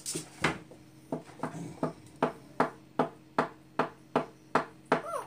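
A steady run of sharp taps or clicks, about two and a half a second, with a dog whining briefly near the end.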